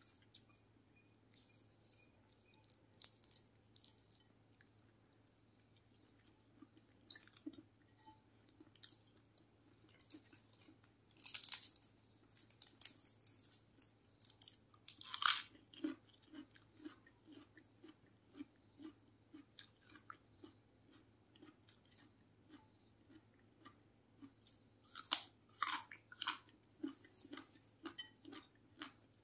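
A person chewing fried chicken and rice close to the microphone: soft, regular chewing about twice a second, with a few louder crisp crunches around the middle and near the end.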